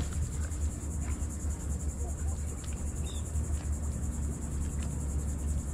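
Steady high-pitched drone of insects from the shoreline vegetation, over a steady low rumble, with a few faint clicks of handling.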